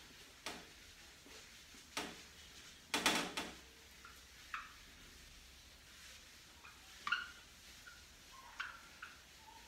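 Dry-erase marker and eraser working a whiteboard: scattered faint taps and short squeaks, with a quick cluster of scrapes about three seconds in.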